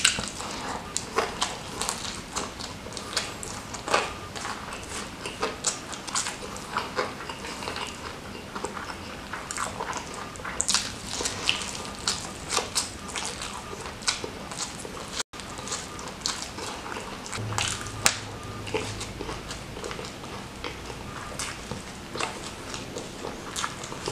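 Close-miked eating of crispy fried chicken (ayam geprek) and rice: biting and chewing, with many short crunches, crackles and wet mouth sounds.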